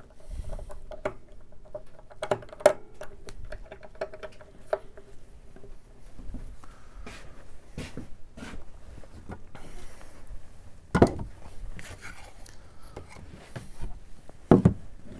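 Wooden objects and tools being handled and set down on a workbench: scattered clicks, light knocks and rubbing, with a faint ringing for the first few seconds and two louder knocks, one about eleven seconds in and one near the end.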